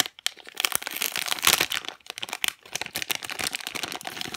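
Plastic packaging bag crinkling and rustling in bursts as it is handled and opened to unwrap a squishy toy.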